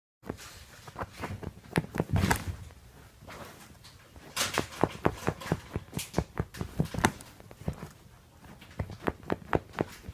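Fingers scratching and tapping at a microsuede couch cushion: quick, sharp taps and scratches in uneven bursts, with a lull shortly before the end.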